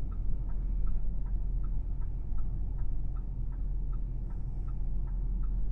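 Vehicle engine idling in the cabin, a steady low rumble, with an indicator flasher clicking evenly about two and a half times a second.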